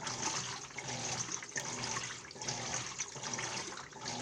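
Washing machine running with water rushing and sloshing inside the drum, rising and falling rhythmically over a low steady motor hum.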